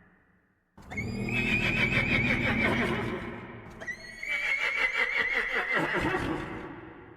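Demon horse sound effect: two long, wavering horse whinnies with a low rumble beneath. The first starts about a second in and the second starts about four seconds in, each lasting about three seconds and fading out.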